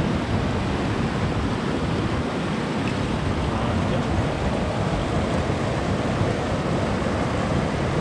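Spring water running steadily from a pipe spout and splashing down, a continuous even rushing.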